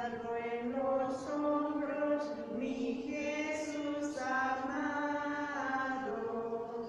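Slow sung chant of a hymn for the Good Friday adoration of the cross: voices hold long, steady notes and step from one pitch to the next.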